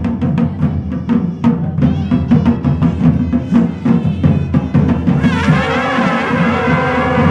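Himachali deity-procession music: drums beaten in a rapid, steady rhythm, with wind instruments joining about five seconds in on held, wavering notes.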